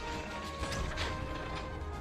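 Background music over the mechanical clacking of an old printing press running off newspapers.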